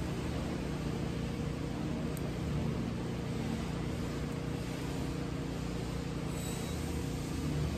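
A steady low mechanical hum over an even background rush, unchanging throughout.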